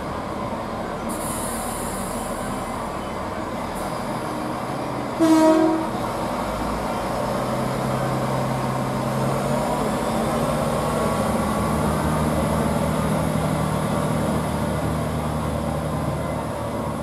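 Chiltern Class 165 diesel multiple unit gives one short horn blast about five seconds in. Its underfloor diesel engines then run up as it pulls away from the platform, with a rising whine.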